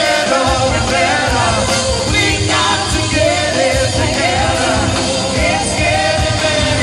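Live rock band playing, with a lead voice and backing singers over guitars, drums and keyboards.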